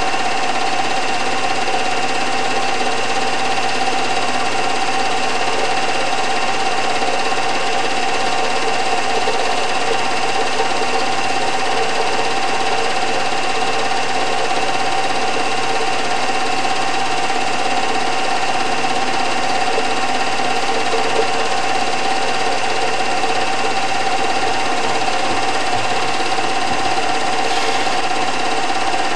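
Home-movie film projector running steadily: an unchanging mechanical whir with a few constant tones, the only sound on the transfer of a silent home movie.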